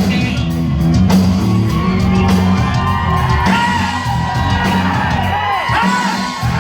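Hard rock band playing live and loud: a heavy bass and drum low end under a high, wailing line that bends up and down in pitch from about three seconds in.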